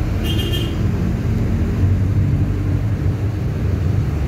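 Steady low rumble of a moving bus heard from inside the passenger cabin: engine and road noise. A brief high-pitched tone sounds in the first half second.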